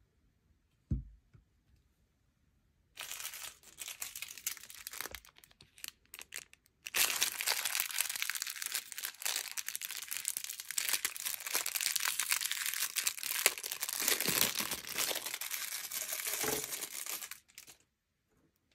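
Small plastic parts bag crinkling and rustling as it is handled and opened: a short bout about three seconds in, then steady crinkling for about ten seconds that stops near the end. A single soft knock about a second in.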